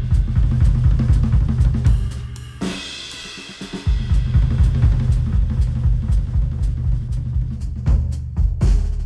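Instrumental music with a drum-kit beat over heavy bass, played through headphones and picked up by microphones. The beat drops out briefly about three seconds in, leaving higher tones, then comes back in.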